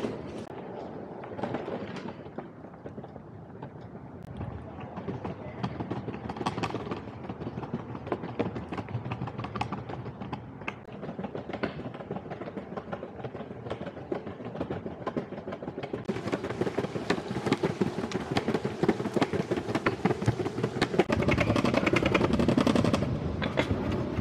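Longboard wheels rolling over paving, a rough rumble made of rapid clicks and clacks as the wheels cross the joints. A brighter rushing hiss joins about two-thirds of the way through and grows louder near the end.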